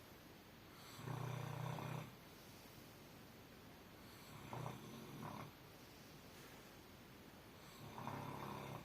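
Snoring in sleep: three snores about three and a half seconds apart, each about a second long, the middle one broken into two short parts.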